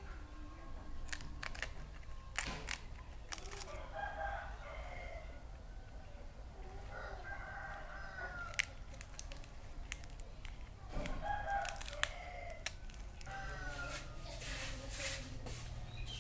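Rooster crowing several times, each crow a second or two long, with short sharp clicks and crackles in between.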